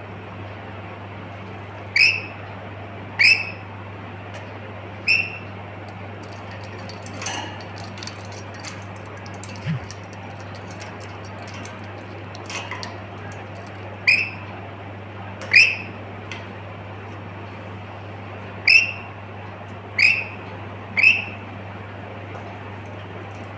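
A pet lory, a small parrot, giving short high calls that drop in pitch, about ten of them in irregular groups, over a steady low hum. Between the calls there are a few soft clicks and rustles.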